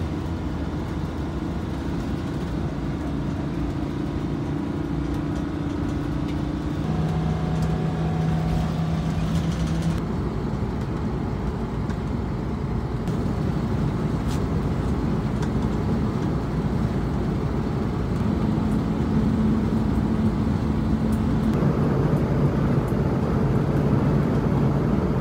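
Motorhome driving at highway speed, heard from inside the cab: steady engine and road noise with a low droning hum that shifts pitch a few times.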